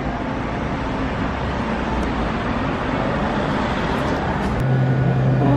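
Street traffic noise, an even rush of passing vehicles. About four and a half seconds in, a low steady hum begins.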